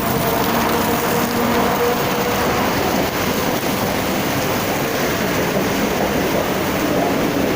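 Steady rain falling, an even hiss, with a faint humming tone over it for about the first two seconds.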